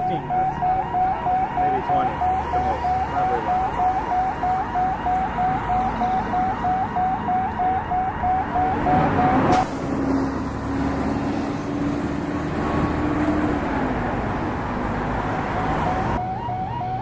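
An electronic warning alarm sounding a short chirp about four times a second. It cuts off abruptly about halfway through and gives way to a rushing noise with a steady low hum, and the chirping returns near the end.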